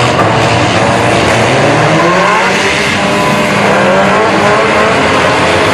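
Several demolition derby cars' engines revving hard at once, overlapping and rising and falling in pitch, a loud steady din of cars manoeuvring and pushing against each other.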